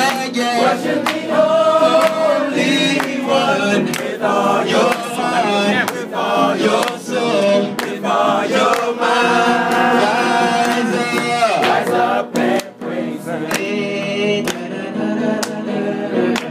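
A group of voices singing a worship song together, with sharp percussive hits scattered through the singing.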